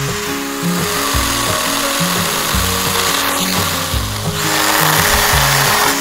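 Stihl GTA 26 cordless mini chainsaw cutting through a branch, a steady buzzing hiss that grows louder about four seconds in. Background music with a bass line plays underneath.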